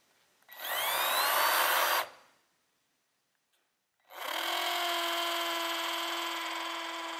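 Cordless drill with a masonry bit boring a pilot hole for a Tapcon screw into concrete. It makes two runs: a short burst that rises in pitch as the motor spins up, a pause, then a longer steady run from about four seconds in that tapers slightly. Progress is slow because a plain drill without hammer action is being used on masonry.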